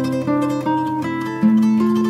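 Background music: a plucked-string melody, with new notes struck about every half second over a sustained low note.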